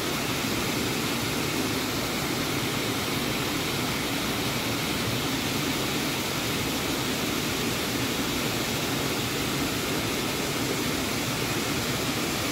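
A creek rushing over a rocky cascade: a steady, unbroken rush of whitewater.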